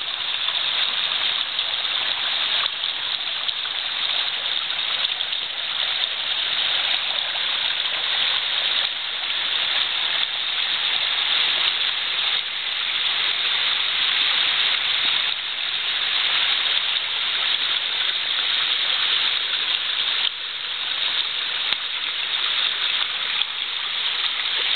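Waterfall and stream water rushing over rocks, a steady hiss-like rush.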